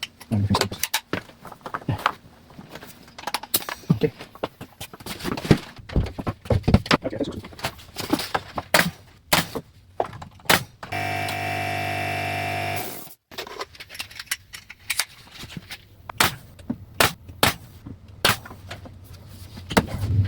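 Sharp knocks and clicks from fitting and fastening wooden door-casing molding. About eleven seconds in, a steady motor-like hum runs for about two seconds and cuts off suddenly.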